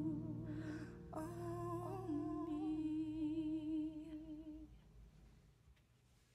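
A woman singing wordless held notes with vibrato over a soft sustained backing, with a breath about half a second in. Her voice stops about five seconds in and the backing fades away.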